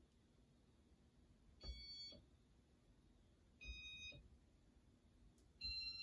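Casablanca Victorian II ceiling fan's Inteli-Touch control beeping three times, about two seconds apart, each beep about half a second long and a little higher in pitch than the one before, each starting with a soft click. The beeps mark the fan being stepped up through its speeds.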